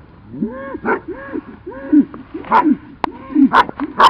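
Dog yelping in a quick run of high, arching calls, about two a second, then several short sharp barks in the second half.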